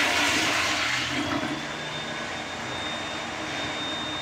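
Tankless commercial flushometer toilet flushing: a loud rush of water that fades after about a second into quieter steady running as the bowl refills. A thin, steady high whistle sets in as the rush dies down.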